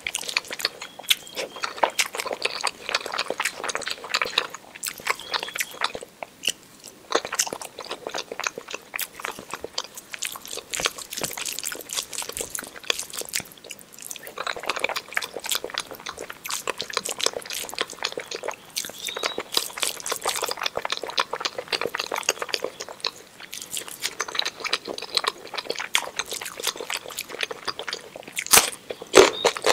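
Close-miked eating sounds: wet chewing, smacking and small crunching clicks as rice, omelette and mashed potato are eaten by hand. There is a louder crunch near the end.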